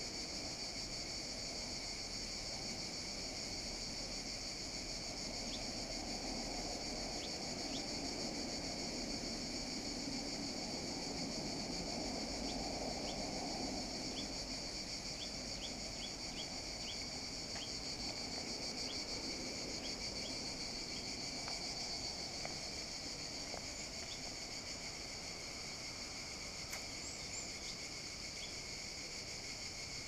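A steady, high-pitched chorus of insects buzzing without a break. Short high chirps are scattered through the middle, over a soft low rushing in the background.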